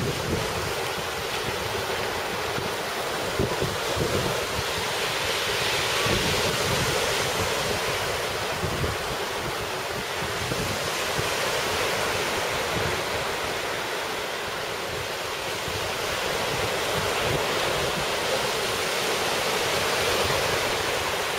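Sea surf breaking and washing up the beach in slow swells, with wind gusting on the microphone.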